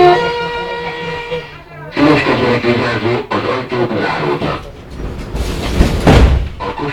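A chime tone fades out at the start. Then the metro car's doors slide shut with a heavy low thud about six seconds in.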